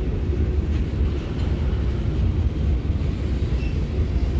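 Empty covered hopper cars of a unit grain train rolling past, their wheels on the rails making a steady, low rumble.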